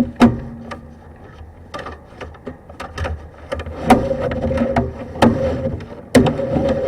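Sewer inspection camera head and push rod being fed into a plastic drain cleanout: irregular knocks and clatters as the head bumps along the pipe, over a steady hum and rumble.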